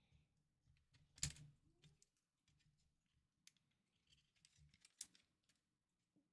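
Faint, scattered clicks and taps of small tools against plastic console parts being handled and pried, with the sharpest click about a second in and another near five seconds.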